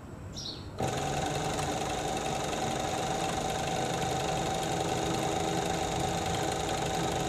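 Industrial pico (overlock) machine sewing a rolled pico edge along the edge of a cloth. It starts up about a second in and runs at a steady speed with an even hum, stopping near the end.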